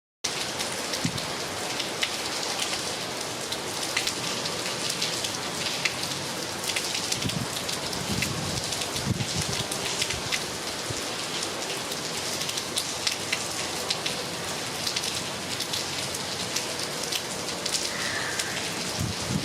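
Heavy rain falling steadily, with many sharp ticks of drops striking nearby surfaces and a few dull low thuds.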